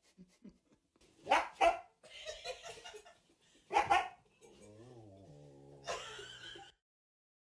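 A dog barking: two sharp barks in quick succession, then a single bark a couple of seconds later.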